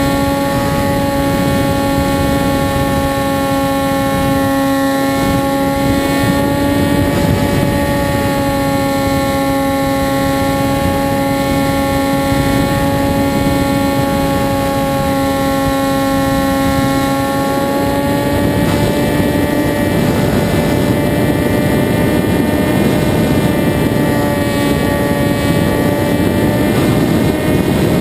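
Onboard sound of a radio-controlled flying wing in flight: its motor and propeller give a steady whine that sways slightly in pitch, over rushing wind noise that grows stronger about two-thirds of the way through.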